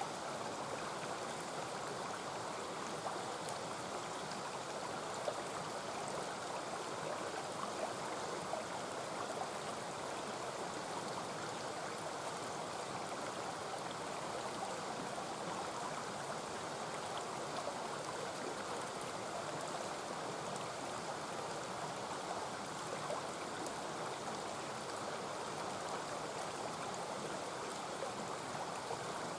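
Mountain stream flowing steadily, with a few brief sharp crackles from the campfire.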